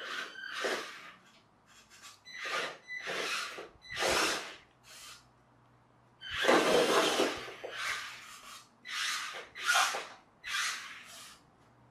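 Toy-grade RC rock crawler's electric motor and gearbox whirring in about a dozen short bursts of throttle, the longest about six and a half seconds in, as the car struggles on and off a plastic parts box. It is driving on three wheels because a broken front coupling leaves one front wheel without drive.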